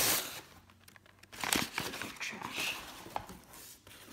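Crumpled newspaper packing rustling and crinkling as hands dig through it in a cardboard box, in uneven bursts with small crackles; loudest right at the start and again about a second and a half in.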